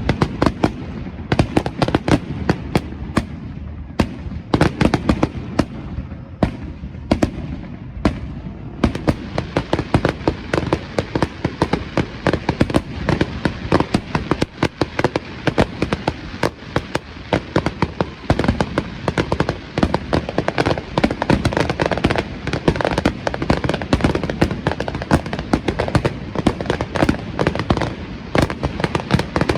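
Fireworks display: a rapid, continuous series of bangs and pops. From about nine seconds in it thickens into dense, constant crackling.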